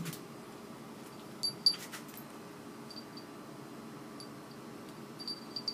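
Two small moped gearbox gears clinking lightly against each other in a hand: a few faint metallic clicks, the clearest two about one and a half seconds in, over a faint steady hiss.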